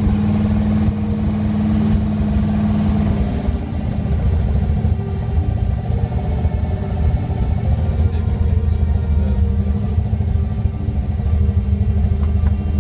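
1966 Chevrolet C10 pickup's engine idling steadily, heard from inside the cab, cold, on its first start of the day; about three and a half seconds in, its note drops and gets deeper.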